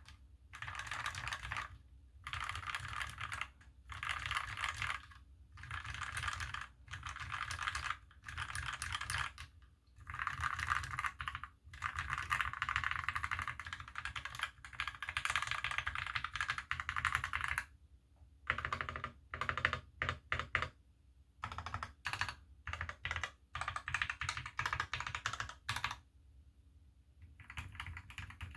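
Typing on a KBD75v2 mechanical keyboard with lubed milky Gateron Yellow linear switches, a brass plate and GMK keycaps: fast runs of keystrokes in bursts of a second or two with short pauses between, the bursts shorter and choppier in the second half.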